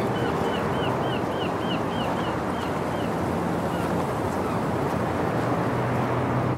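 Outdoor ambience: a steady rushing wash, with a bird calling a run of about ten short, quick, hooked notes through the first three seconds. It stops abruptly at the end.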